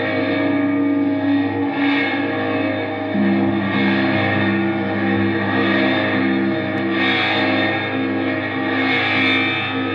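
Droning, improvised music of distorted electric guitars through effects units. Long held notes ring over a low drone and step down in pitch about three seconds in. Noisy swells rise in the high end every second or two.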